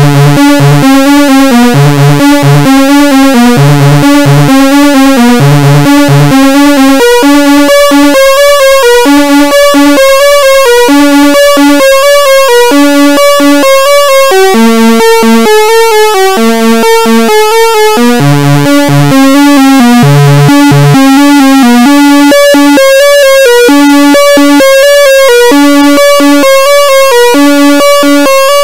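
Behringer Crave analog synthesizer playing a fast repeating sequenced pattern of short notes, with a low bass note pulsing under it in the first few seconds and again about two-thirds through.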